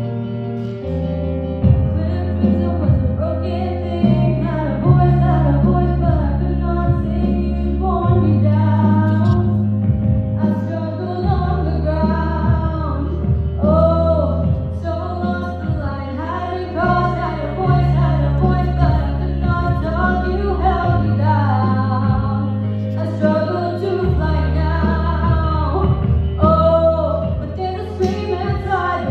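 A female voice singing a pop song over piano accompaniment with held bass notes that change every couple of seconds.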